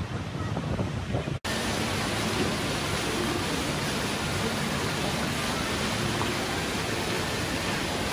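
Steady rushing noise of a large shopping-mall atrium, with an indoor water fountain and a distant crowd. It starts at a hard cut about a second and a half in, replacing quieter outdoor street noise.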